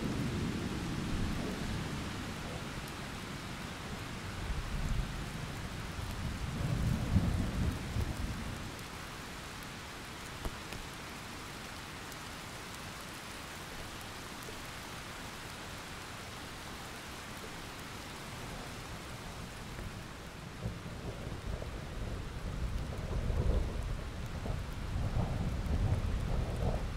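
Steady rain with rolling thunder. Low thunder rumbles swell around seven seconds in and again through the last several seconds, with only the rain between them.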